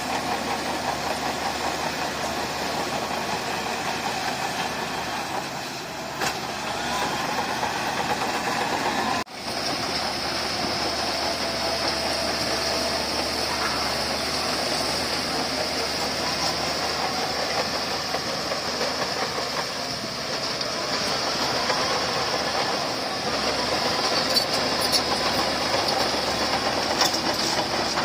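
Crawler bulldozer's diesel engine running steadily under work, with the clank of its steel tracks. There is a sudden break about nine seconds in, after which a steady high whine joins the engine.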